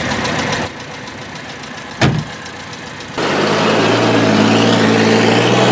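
A motor vehicle engine sound effect: a single knock about two seconds in, then the engine running at a steady idle from about three seconds in, dubbed over a stop-motion toy bus as its drivers take their seats.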